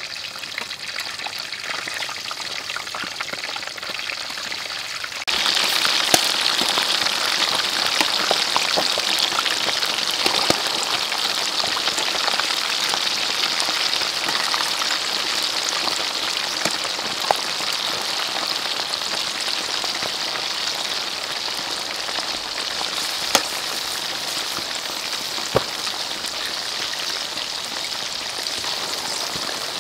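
Chicken pieces deep-frying in a wok of hot oil: a steady, dense sizzle that grows suddenly louder about five seconds in, with a few sharp single pops.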